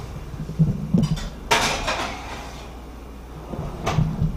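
A baking dish of pretzel crust being put into the oven: a few light knocks, then a rasping scrape of about half a second as it slides in, and another knock near the end.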